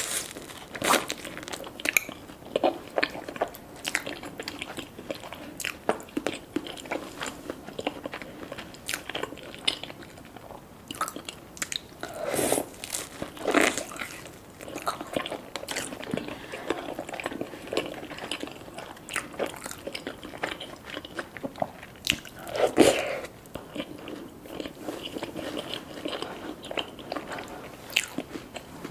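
Close-up eating sounds: a person biting and chewing food with crisp crunches and wet mouth clicks, and a few louder crunchy bites about twelve, fourteen and twenty-three seconds in.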